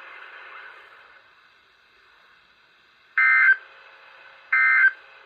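NOAA Weather Radio broadcast through a receiver's speaker: a low hiss fades, then two short, harsh digital data bursts come about 1.4 seconds apart. These are the SAME end-of-message code that closes the required weekly test.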